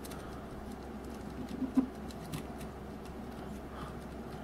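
Faint clicks and scrapes of plastic as an action figure is handled and posed on a small plastic toy ATV, with a slightly louder knock a little under two seconds in, over a low steady hum.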